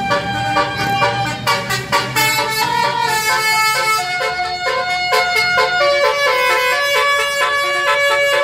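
Bus 'telolet' horn, a multi-tone air horn playing a tune: held notes that step from one pitch to another, with some short quick blasts between them.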